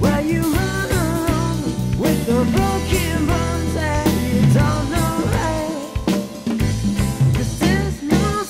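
Background song: a singing voice over a drum beat.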